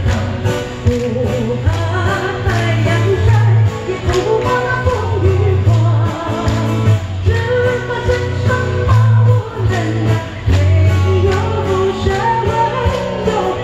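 Live amplified performance from a Chinese folk song medley: a woman singing a melody into a microphone over a steady beat and heavy bass accompaniment, played through PA loudspeakers.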